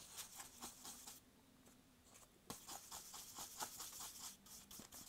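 A paintbrush scrubbing and scraping on a palette plate, mixing acrylic paint: a run of faint short rasping strokes that pauses about a second in and picks up again about halfway.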